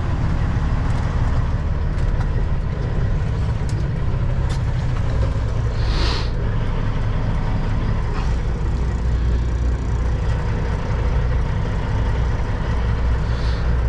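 Kenworth W900 semi truck's diesel engine running steadily with a deep low rumble, its note shifting about five seconds in, with a brief high hiss about six seconds in and again near the end.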